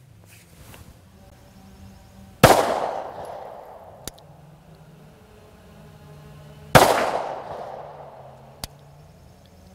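Two 9mm pistol shots from a SIG Sauer M18 (P320), fired about four seconds apart, each ringing out for about a second. A short faint tick follows each shot.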